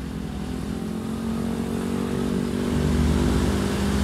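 Diesel train engine running with a steady pitched drone and low rumble, growing louder about three seconds in as the train pulls away or draws closer.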